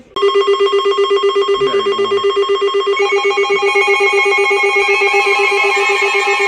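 Several NOAA weather radios going off at once with their alert alarms for a severe thunderstorm warning. A loud, rapidly pulsing electronic tone starts sharply, a second higher alarm tone joins about three seconds in, and a warbling siren-like tone comes in near the end.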